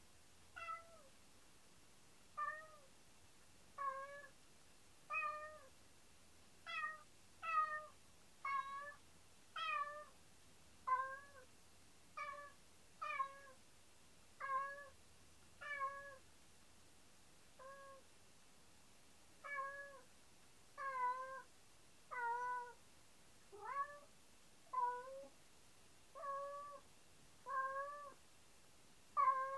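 Domestic cat meowing over and over, about one short meow every second or so, each call dropping a little at its end. These are the crying calls the owners suspect come from separation distress when they are out of sight.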